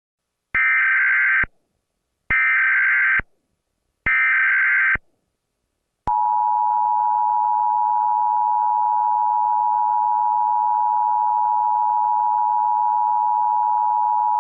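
Emergency Alert System opening: three short bursts of SAME header data tones, each under a second and evenly spaced, then about eight seconds of the steady two-tone EAS attention signal. The header encodes a Child Abduction Emergency (Amber Alert), and the attention signal announces that the voice message follows.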